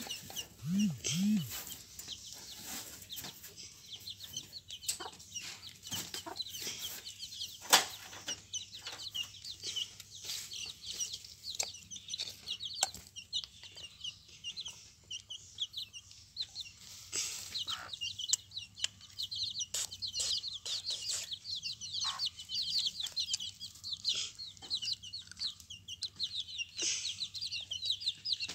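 A flock of young Kadaknath (karinkozhi) chicks about 20 days old peeping without pause: many short, high, falling peeps. About a second in come two low clucks from a hen, and short taps are scattered throughout, one of them louder near the 8-second mark.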